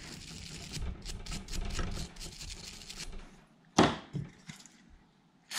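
Small brush scrubbing salt and sandy grime off the inner mechanism of a corroded spinning reel: a quick run of scratchy strokes for about three seconds. Then a single sharp knock about four seconds in, with a lighter one just after.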